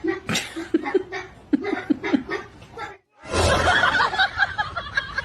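People laughing in short, choppy bursts for about three seconds. Then a sudden cut to a denser, noisier stretch of mixed sound.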